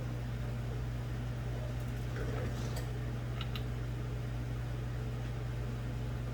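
Steady low mechanical hum, with a few faint light clicks near the middle.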